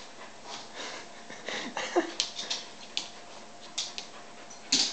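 An old dog humping a person's leg: a run of irregular, short scuffing and breathy sounds, with a louder burst near the end.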